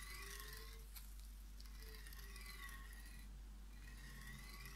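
Linear guide carriage block rolling back and forth along its steel profile rail, a faint whir from the recirculating balls whose pitch rises and falls with each stroke, about two to three strokes. The block glides very smoothly on a rail with almost no scratches.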